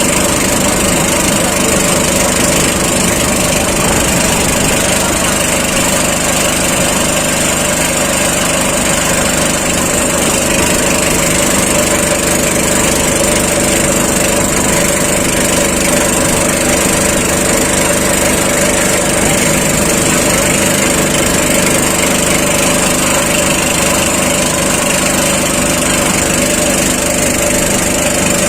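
A small engine running steadily at a constant speed, with no change in pitch.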